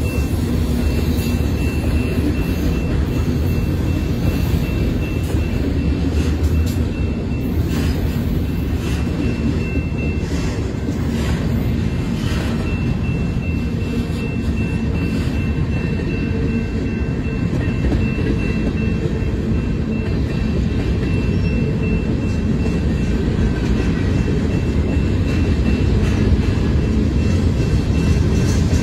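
Freight train cars rolling past (enclosed autorack cars, then a covered hopper and a boxcar): a steady low rumble of steel wheels on the rails, getting a little louder near the end.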